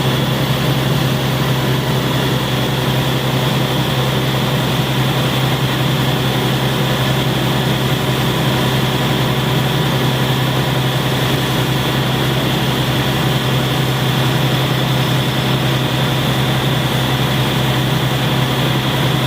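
Caterpillar C9 inline-six diesel engine running steadily with an injector misfire, a steady high whine above the low engine note.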